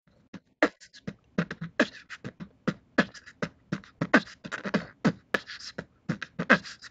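Intro music: a quick beatbox-style percussion beat of low, pitch-dropping kick thuds and hissing hi-hat sounds, several strokes a second.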